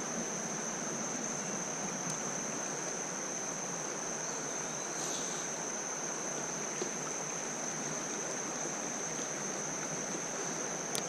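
Shallow creek water running over rocks, a steady rushing, with a steady high-pitched whine above it and a few faint ticks.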